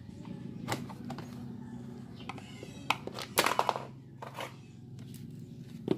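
Sharp clicks and knocks of a screwdriver working a fastener loose behind a car bumper, with a quick clatter about halfway through, over a steady low hum.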